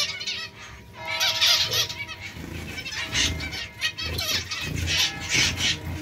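A flock of zebra finches calling: many short, overlapping chirps and beeps.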